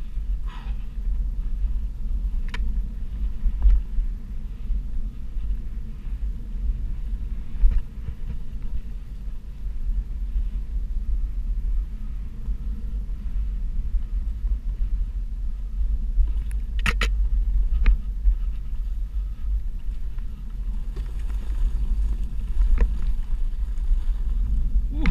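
Steady low rumble of a Onewheel XR+ electric board riding over a dirt trail, its tyre rolling on the ground with wind on the microphone, broken by a few sharp clicks, the loudest about two-thirds of the way through.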